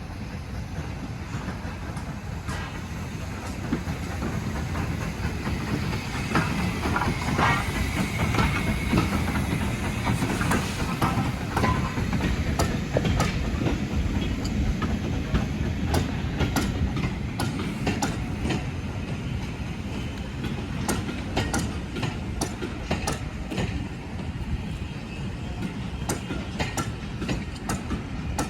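Train running along the rails with a steady rumble. The wheels click over rail joints, the clicks coming thicker through the second half, with a brief high wheel squeal early on.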